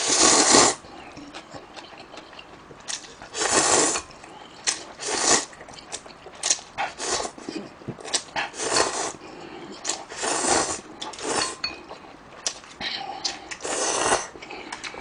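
A person slurping instant ramen noodles: about half a dozen noisy slurps, each about half a second long and a second or two apart, with quieter chewing and mouth clicks between them.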